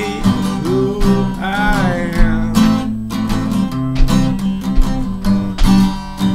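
Acoustic guitar strummed, chord after chord, in a steady rhythm.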